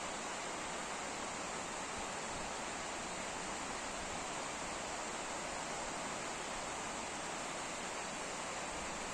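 Steady, unbroken rush of water at a small irrigation dam.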